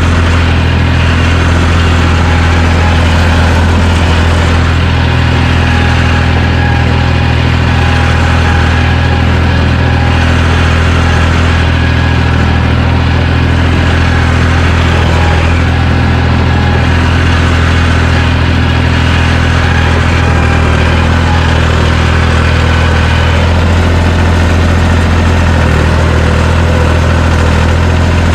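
John Deere 350 crawler dozer's engine running steadily under work while grading a dirt road.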